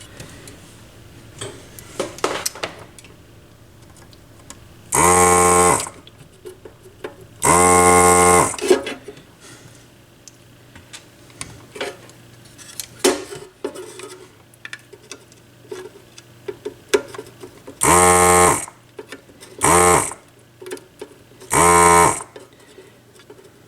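Electric desoldering gun's vacuum pump buzzing in five short bursts, each under about a second at a steady pitch with a hiss of air suction, pulling molten solder from transistor leads; light clicks and ticks of hand tools between bursts.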